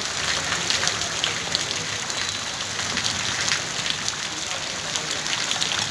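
Steady rain falling on a wet, puddled road, an even hiss dotted with many close drop ticks.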